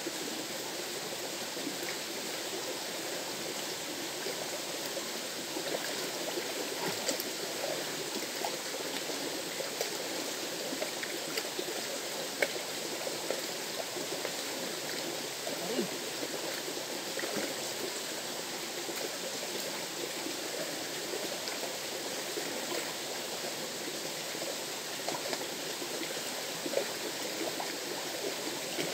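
River water flowing steadily, a constant rushing with small splashes and gurgles through it.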